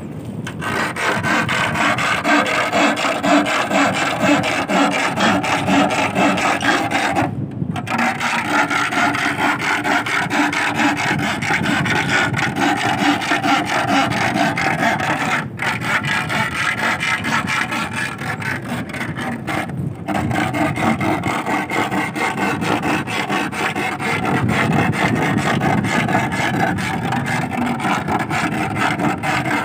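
A metal rod scraped rapidly back and forth across a wooden stake driven into wet sand, a continuous scraping broken by three short pauses. The vibration is made to coax sea worms (sasing) up out of the sand, with no need to dig.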